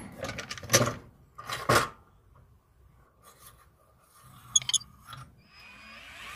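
Metal drill-bit case being opened: two sharp metallic clacks as the latch and lid open, then faint clinks and rattles of steel drill bits in the metal index as one is picked out. A cordless drill starts to whir near the end.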